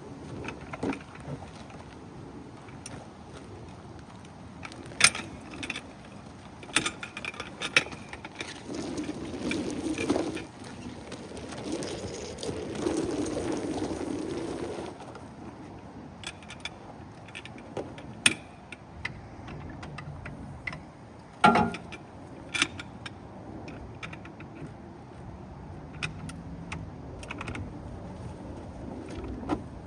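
Scattered sharp metallic clanks and knocks, over a stretch of rustling, as fire supply hose and its couplings are handled and laid out.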